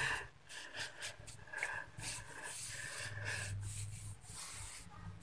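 A hand rustling and scraping through dry chopped straw, pressing a hollow into it to shape a nest, in soft irregular scuffs.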